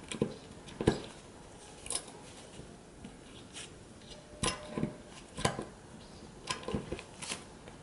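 Small metal hand socket driver turning and tightening the nut on the valve assembly of an Aqualung Calypso regulator second stage: a handful of sharp metal clicks and taps at irregular intervals.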